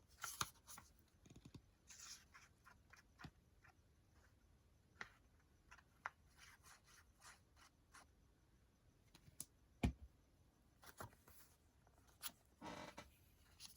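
Faint handling of paper: pages of a handmade paper journal being turned and shuffled, with scattered light rustles and clicks and one sharper tap near ten seconds in.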